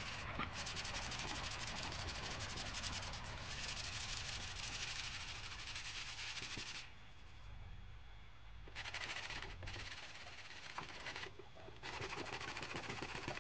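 Plywood subwoofer box being sanded by hand, a steady scratchy rasp of quick back-and-forth strokes over its primed top. It stops about seven seconds in, then comes back in three short spells.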